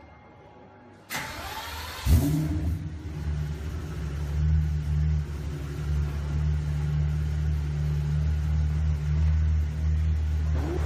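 A supercar engine being started: the starter cranks for about a second, the engine fires about two seconds in with a brief rev flare, then settles into a steady, loud idle.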